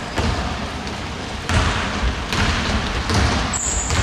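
Basketball bouncing on a hardwood gym floor in a few irregular thumps, with a brief high sneaker squeak near the end, over a steady hiss of hall noise.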